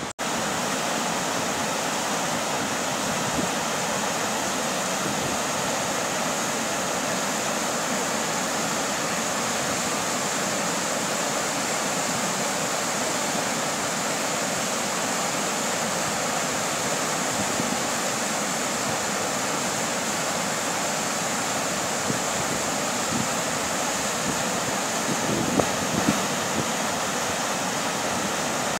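Muddy floodwater of the Gravina torrent in spate, rushing steadily over its gravel bed with an even, unbroken noise.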